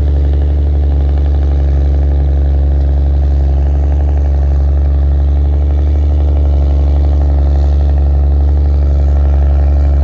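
A large engine running steadily at constant speed, a deep, even drone with no change in pitch.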